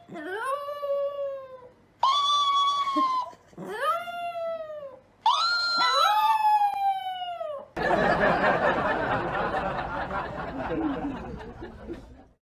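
A pet animal gives four long, drawn-out howling calls, each rising and then slowly sliding down in pitch, the last two overlapping. A rushing noise follows for about four seconds and cuts off abruptly near the end.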